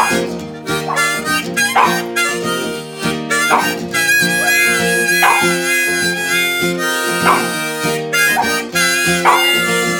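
Harmonica chords over a strummed acoustic guitar, with a small dog howling along to the harmonica.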